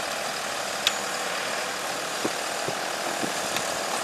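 Heavy diesel machinery engine idling steadily, with one sharp knock about a second in.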